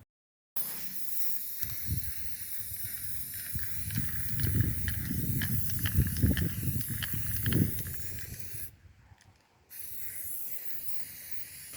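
Aerosol spray-paint can hissing steadily as white paint is sprayed, with a short break near the end. Some low rumble and dull knocks of handling come through in the middle.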